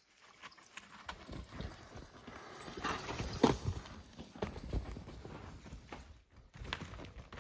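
Mountain bike rolling down a steep rock slab: the tyres and frame knock and rattle irregularly over the rock, loudest about three seconds in. A thin, high squeal comes and goes over it.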